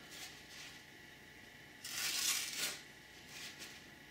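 Folded paper towel rustling briefly as it is handled and cut, loudest for about a second around two seconds in, with fainter rustles before.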